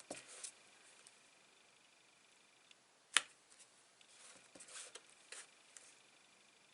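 Quiet papercraft handling: one sharp click about three seconds in, then soft rustling and dabbing as small paper pieces are inked and handled.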